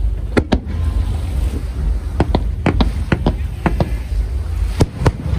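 Fireworks going off in a quick, irregular series of sharp bangs, about a dozen in a few seconds, some in close pairs, over a steady low rumble.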